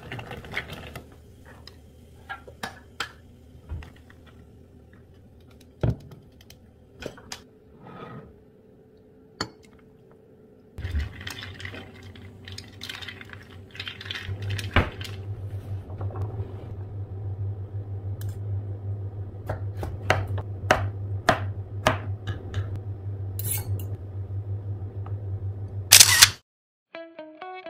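Metal spoon stirring ice cubes in a glass mason jar of lemonade, giving scattered clinks of ice and spoon against the glass. About eleven seconds in, a steady low hum comes in underneath, and a single loud sharp knock comes near the end.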